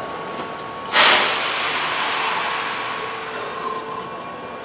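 Keihan 2600-series electric train's air brakes releasing: a sudden loud hiss of compressed air about a second in, fading away over the next two seconds.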